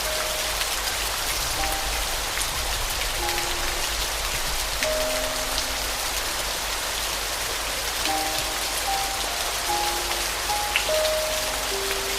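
Steady rain falling, an even hiss dotted with sharp individual drop ticks, under soft piano playing slow, sparse single notes, with a cluster of quicker notes about eight seconds in.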